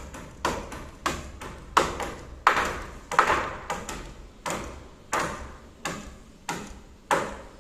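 Hammers driving nails through 2x3 timber purlins into wooden roof rafters: a steady run of sharp blows, about two a second, from more than one hammer.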